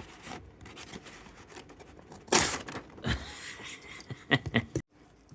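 Handling noises from objects being picked up and moved: one loud rub or knock about two seconds in, a softer one a moment later, then a quick run of clicks near the end.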